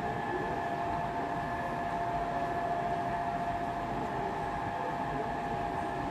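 Steady indoor hum and hiss, like air conditioning or ventilation, with a constant high whine held throughout.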